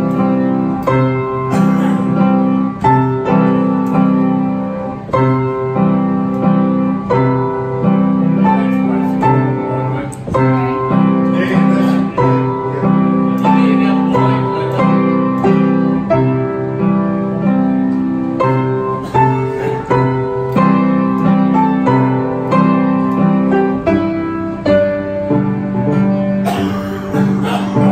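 Beale upright piano played with both hands: a continuous tune of low chords under a higher melody, at a steady pace.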